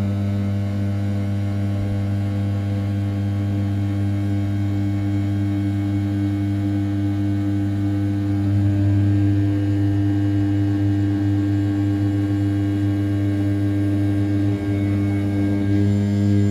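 500 W brushless spindle of an RZ420 desktop CNC mill turning at 6000 rpm while its end mill roughs the outside of an A7075 aluminium block, a steady humming tone with a row of overtones above it.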